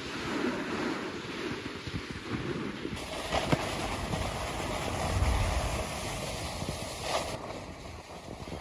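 Wind buffeting the microphone over the steady rushing hiss of a snowboard sliding over snow, with a stronger low gust about five seconds in.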